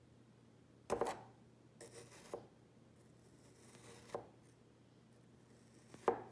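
Kitchen knife slicing through kinetic sand: a few soft, separate crunching cuts, the loudest about a second in and near the end.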